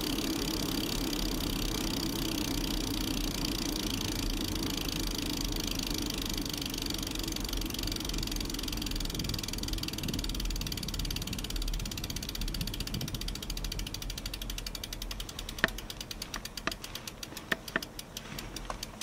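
Mountain bike coasting on asphalt on Continental Race King tyres with no pedalling: steady tyre rolling noise and the rear hub's freewheel buzzing, slowly fading as the bike loses speed. In the last few seconds the freewheel buzz slows into separate clicking ticks.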